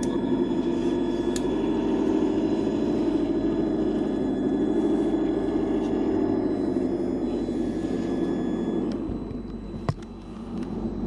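Electric motors and geared drivetrains of radio-controlled scale rock crawlers running steadily, with a thin high whine over a lower drive hum. The sound eases off about nine seconds in, and a single sharp click comes soon after.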